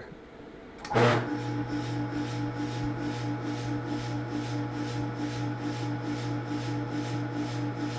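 Omega 4500 PSI airgun-fill compressor starting about a second in, then running with a steady hum. Over the hum come regular short puffs of air, about three a second, venting from its open outlet with no hose attached.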